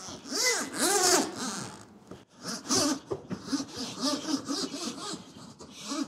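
Hide-A-Hose retractable central-vacuum hose being pulled hand over hand out of its wall inlet. The ribbed hose rubs and swishes through the valve and gives a run of rising-and-falling squeaks, loudest in the first second or so.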